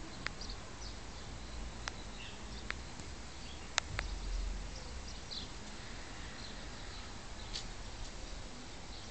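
Small birds chirping faintly and sporadically, high short calls scattered through, over a steady low rumble, with a few sharp clicks in the first half, the loudest a little before four seconds in.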